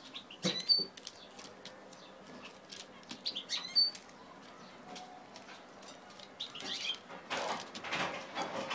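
Zebra finches fluttering their wings in short bursts, with light clicks and two short high chirps in the first half and a longer flurry of wing flaps near the end.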